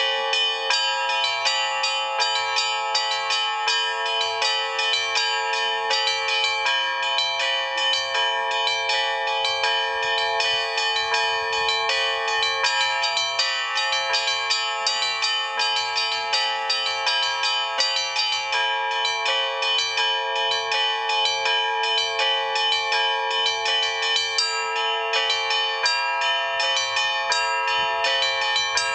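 Russian Orthodox trezvon: church bells rung together in a full peal, the small bells struck in a rapid, continuous pattern over many sustained ringing tones.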